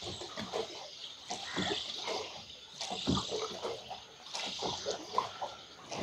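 Water lapping and splashing irregularly against a boat.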